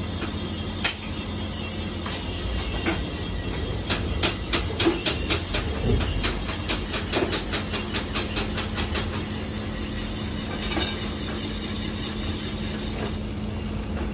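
Portable single-cylinder reboring machine running, its electric motor and boring-bar drive humming steadily. There is a sharp click about a second in, and a fast, even run of ticks for several seconds in the middle.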